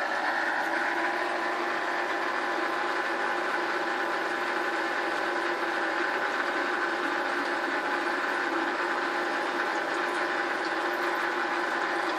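Small electric water pump running with a steady hum that holds one pitch throughout, pushing water through a three-stage drinking-water filter.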